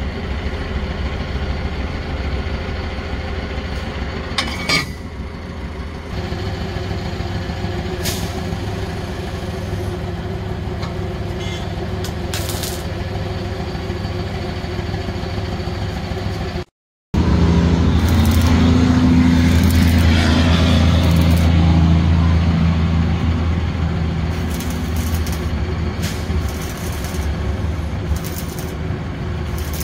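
Motor vehicle engine running steadily with road noise, heard from inside the vehicle. The sound cuts out briefly about two-thirds of the way through, and the low engine hum is louder afterwards.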